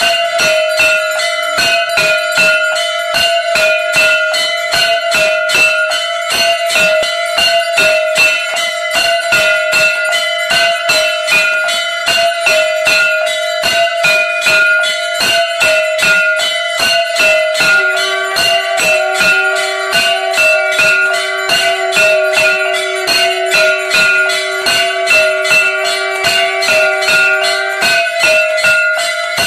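Temple aarti bells and a hand-held brass gong struck rapidly and continuously, about three strokes a second, their ringing overlapping into a steady clang. A lower steady tone joins in for about ten seconds in the later part.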